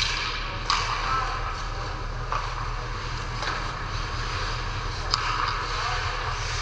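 Ice hockey play: several sharp clacks of sticks and puck over a steady low arena hum and the hiss of skates on the ice.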